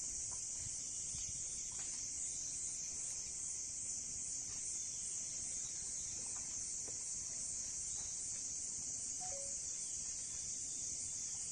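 Insect chorus: a steady, dense, high-pitched drone. A brief two-note call, stepping down in pitch, sounds about nine seconds in.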